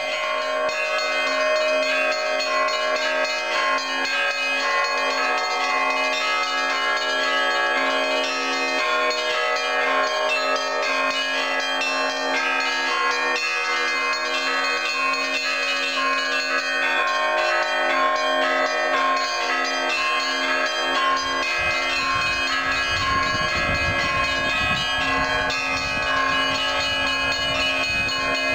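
Russian Orthodox monastery bells ringing an Easter peal: many bells of different pitches sounding together in a dense, continuous ringing. A low rumble joins in for the last several seconds.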